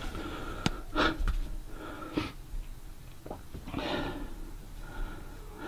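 A person breathing close to the microphone, several audible breaths about a second or two apart.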